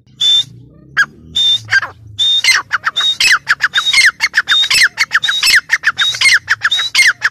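Grey francolin (teetar) calling loudly: a few spaced shrill notes, then from about two seconds in a fast, rhythmic run of repeated ringing phrases with quick notes between them.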